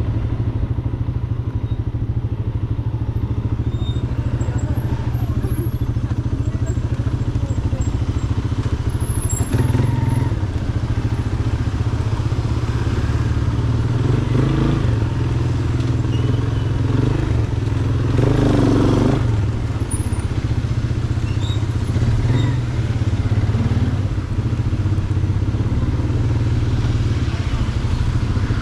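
Motorcycle engine running steadily at low speed in slow traffic, with road and wind noise on the helmet microphone. Briefly louder about two-thirds of the way through.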